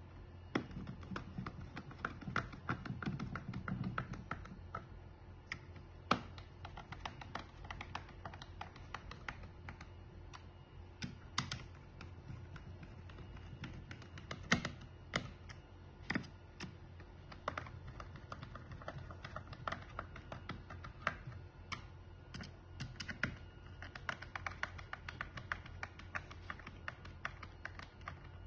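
Faint, irregular light clicks and taps, scattered unevenly, over a low steady hum.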